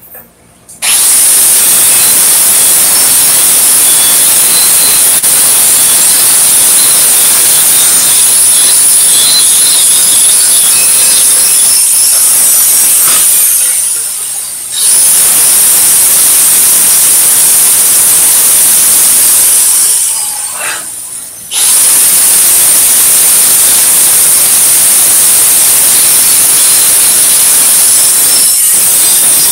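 Angle grinder grinding the cut edges of a steel propane tank smooth, loud and steady. It winds down twice, about 13 and 20 seconds in, and starts up again each time.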